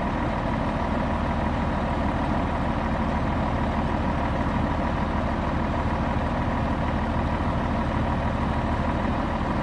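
2001 Freightliner FL112 tri-axle dump truck's diesel engine idling steadily.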